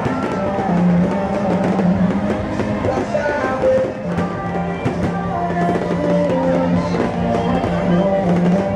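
Loud music with drums and a low held bass note.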